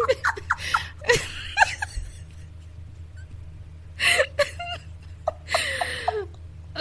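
Women laughing hard in several breathy bursts, with short quieter gaps between, over a faint steady low hum.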